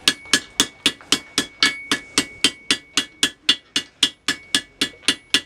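Blacksmith's hammer striking a heated iron rod on an anvil in a steady rhythm, about three and a half blows a second, each blow leaving a short metallic ring from the anvil.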